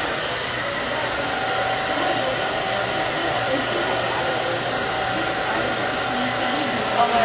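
Hand-held hair dryer running steadily while blow-drying wet hair: a constant rush of air with a faint steady motor whine.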